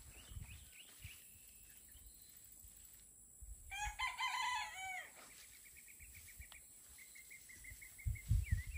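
A rooster crows once, lasting about a second and a half, near the middle. After it comes a quick, even run of high bird chirps.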